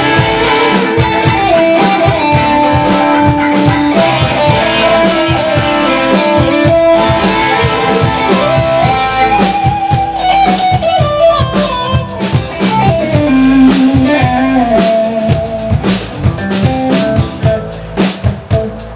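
Live blues band of electric guitars, electric bass and drum kit playing an instrumental passage, with a lead line of long, bending guitar notes over the beat. Near the end the lead drops back and the drums stand out.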